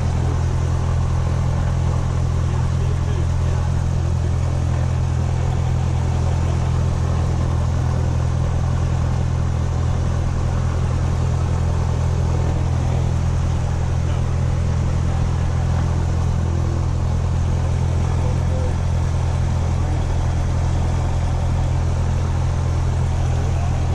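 Cessna 172 SP's four-cylinder Lycoming IO-360 engine and propeller running steadily at low idle just after start, heard from inside the cockpit as a constant low drone.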